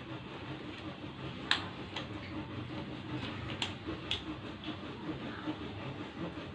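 Steady background hum and hiss with a few scattered sharp clicks, the loudest about a second and a half in.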